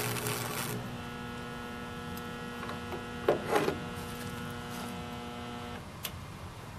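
Stick-welding arc crackle that stops within the first second as the arc is broken. Then the Campbell Hausfeld 70 A arc welder hums steadily, with a brief clatter about three seconds in. The hum cuts off near the end, followed by a single click.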